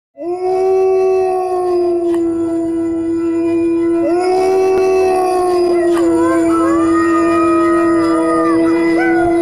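Dogs howling. One long, steady howl begins just after the start and a fresh one starts about four seconds in. From about six seconds, higher, wavering howls from another dog join in.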